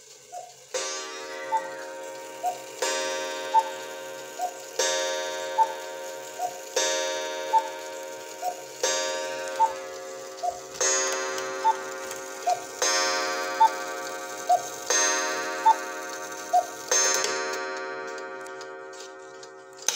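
A cuckoo clock calls the hour, its cuckoo notes falling between nine clock gong strikes about two seconds apart. Each strike rings on until the next.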